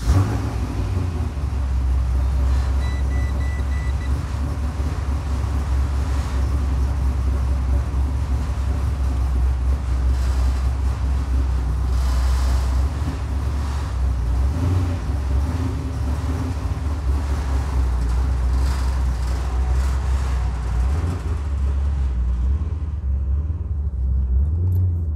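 Holden VZ SS ute's V8 running at idle just after starting, a steady low rumble. Near the end the ute creeps out of the shed.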